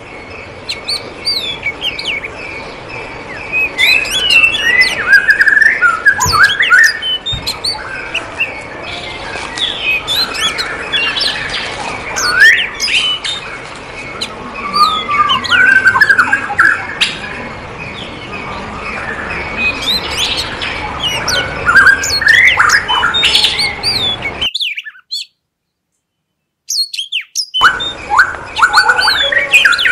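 Many aviary birds calling at once: dense overlapping chirps and short whistled notes that rise and fall in pitch. Near the end the sound cuts out completely for about three seconds.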